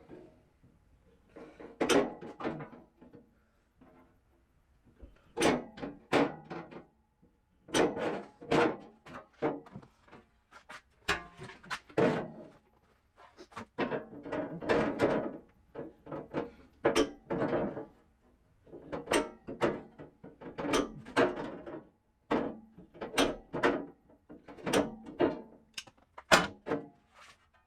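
Irregular series of knocks and clunks with a little rattle, coming singly and in quick clusters every second or so, with short pauses between them.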